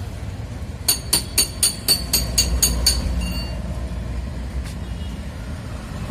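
A quick run of about nine sharp metallic clicks, roughly four a second, from metal parts being worked on a scooter at the garage, over a steady low rumble of traffic and engines.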